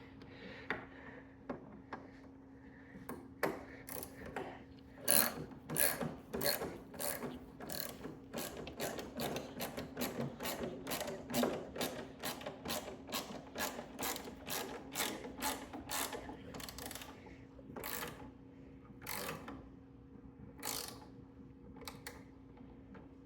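Hand ratchet clicking in a long run of short strokes, about two clicks a second, as a motorcycle bolt is turned in and tightened; the clicks thin out near the end.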